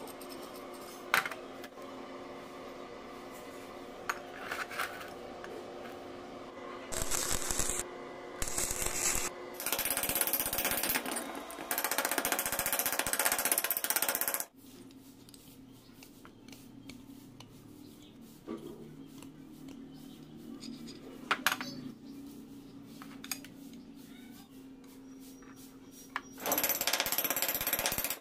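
Stick welding on steel: the arc crackles and sizzles in several bursts, three short ones then a long one lasting several seconds, and another burst near the end. Between the bursts there are a few light clicks and taps of metal parts.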